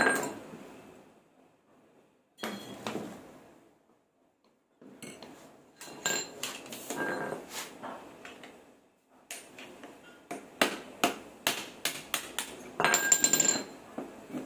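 Steel hammer blows ringing on the propeller shaft's yoke and a punch as a worn cross joint (universal joint) is driven out. A few separate strikes come first, then a quicker run of blows, about two a second, in the second half.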